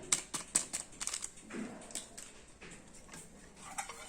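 A utensil clicking and knocking against a mixing bowl as semolina batter is stirred, quick sharp clicks at first, then quieter scraping with a few more knocks near the end.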